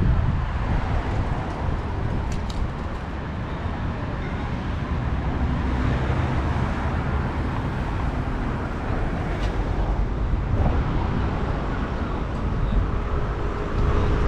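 Wind buffeting the microphone, a steady low rumble that rises and falls, over outdoor traffic noise.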